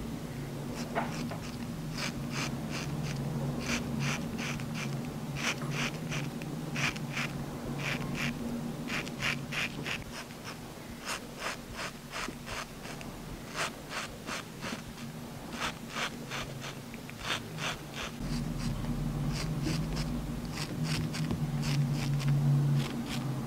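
Cutthroat straight razor scraping stubble through shaving foam in short, quick strokes, each a crisp rasp, many in a row, over a low steady hum that fades out for a stretch in the middle.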